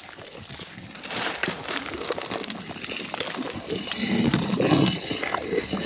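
Crackling and rustling as handfuls of fried cashew nuts and black raisins are scooped off a steel tray and dropped into a large pot of hot payasam, with a ladle stirring the liquid. It grows louder after about a second.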